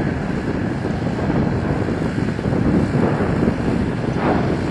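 Steady low noise of lava fountaining from an erupting volcanic fissure, mixed with wind buffeting the microphone.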